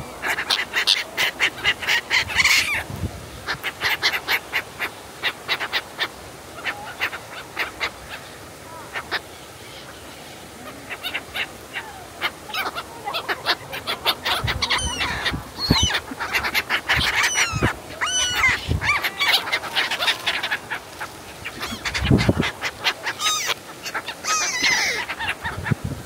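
A flock of black-headed gulls calling: many short, harsh cries overlapping one another, thinning to a lull for a few seconds in the middle before the calling picks up again.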